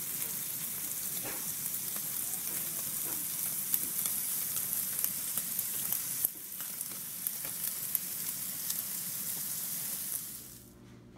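Intro sound effect: a steady sizzling hiss with scattered crackles, dipping briefly about six seconds in and fading out near the end.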